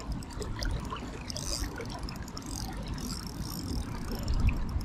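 Running river water as a steady rushing hiss, with an uneven low rumbling on the microphone.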